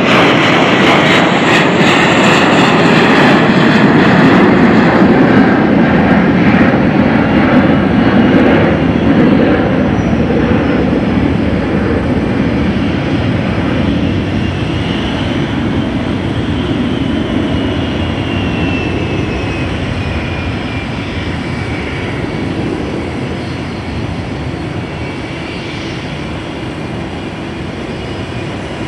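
Boeing 777 jet airliner landing: engine noise swells to its loudest a few seconds after touchdown, then fades steadily as the plane slows on the runway. A high whine falls in pitch in the second half.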